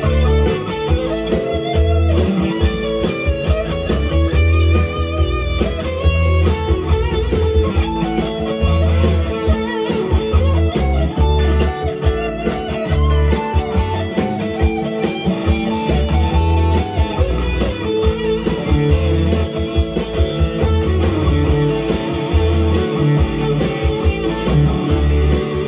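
Harley Benton HB TE-30 BE Telecaster-style electric guitar played through an amplifier, picking single-note lines and chords.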